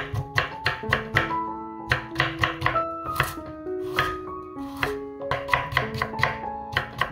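Chef's knife julienning pickled radish and then carrot on a wooden cutting board: quick runs of sharp chopping strokes, about four a second, with a short pause in between. Light piano-like background music plays under the chopping.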